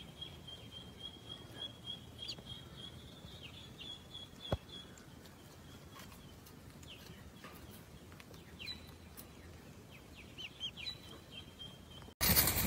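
Faint high bird chirps and short falling peeps over a steady thin high-pitched tone that holds for the first five seconds and returns near the end, with one sharp click about four and a half seconds in. A much louder noisy sound cuts in abruptly in the last half second.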